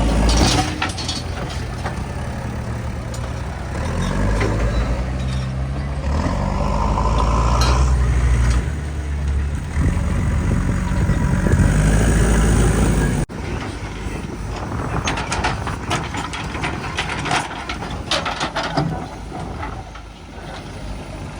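Heavy diesel earth-moving machinery at work: the engine running and revving up and down under load, with repeated metallic clanks and rattles. The engine sound changes abruptly about two-thirds of the way through.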